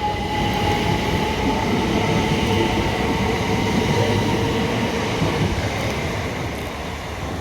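A train running through the station: a steady rumble with thin steady whining tones over it, easing slightly near the end.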